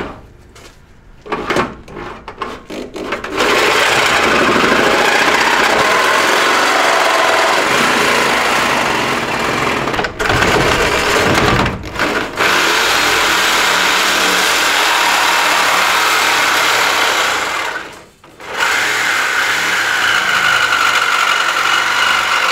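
Corded reciprocating saw cutting through a car's metal front crossmember: a few short stop-start bursts at first, then continuous sawing with two brief dips. Near the end it stops for about a second and starts again with a steadier whine.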